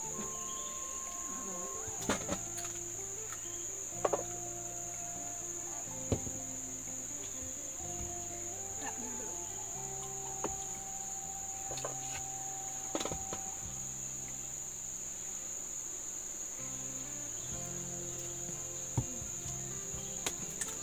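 Steady high-pitched chorus of forest insects, with a few sharp clicks or knocks scattered through it.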